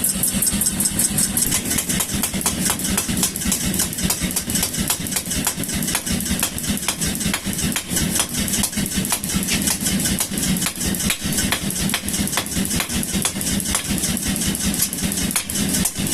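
Power hammer running and striking hot steel in a rapid, even rhythm of several blows a second over the steady hum of its motor.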